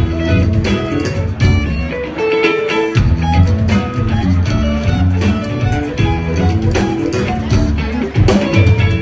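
Live rock band playing loud, guitar over drums, heard from the audience. The bass end drops out for about half a second around two and a half seconds in, then the full band comes back in.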